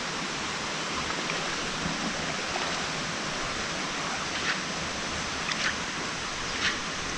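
Steady rush of water in a shallow freshwater stream, with a few small splashes in the second half from a person wading and working their hands through the water.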